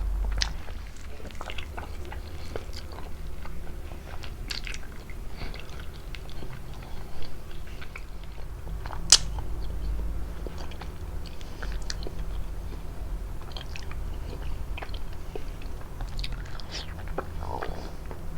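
Close-miked eating of prickly pear fruit: bites and wet chewing, with small crunches of the seeds and mouth clicks, one sharp click about nine seconds in.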